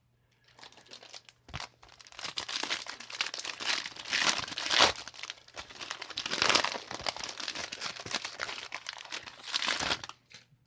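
Plastic wrapper of a trading-card booster pack crinkling and crackling as it is handled and torn open, in several louder flurries.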